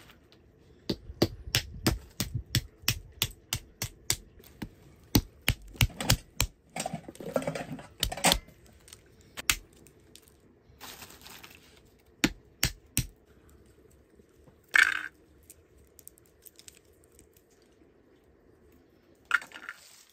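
A run of sharp knocks and clacks, several a second for the first dozen seconds, then only a few, the loudest about fifteen seconds in.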